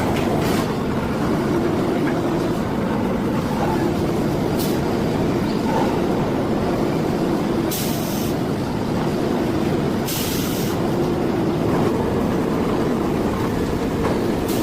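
Heavy factory machinery running steadily with a low hum, broken by short hisses, the longest two about 8 and 10 seconds in.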